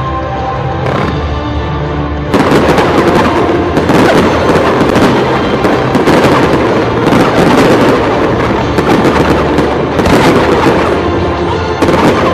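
Music playing, then about two seconds in a loud barrage of aerial fireworks begins: dense, rapid bangs and crackling that swamp the music until it shows through again near the end.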